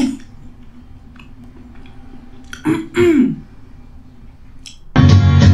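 A person clearing their throat: two quick vocal sounds about three seconds in, the second falling in pitch, over a faint steady hum. Loud music with speech cuts in near the end.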